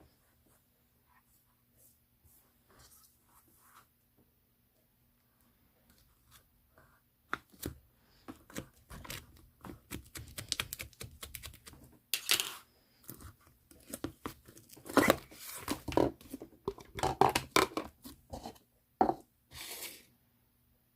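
Hands working a pink mixed slime, with sticky popping and crackling as it is pressed and pulled. It is faint at first and grows into dense, louder crackles from about seven seconds in.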